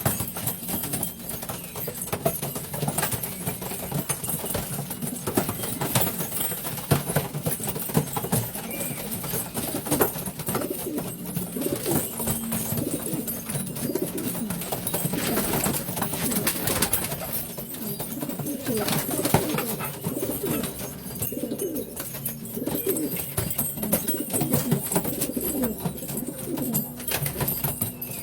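Domestic pigeons cooing over and over, several calls overlapping, with scattered sharp clicks among them.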